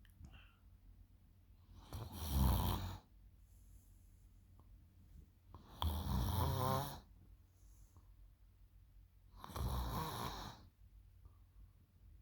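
A girl snoring really loud in her sleep: three snores about four seconds apart, each lasting about a second.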